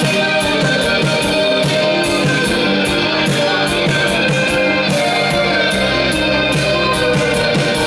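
Live dream-pop band music: electric guitar over sustained keyboard tones, with a steady beat and no singing.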